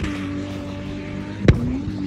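A vehicle engine held at high, steady revs under load while climbing a sand dune, over a hiss of spraying sand. A sharp click comes about one and a half seconds in, and the engine note dips briefly after it.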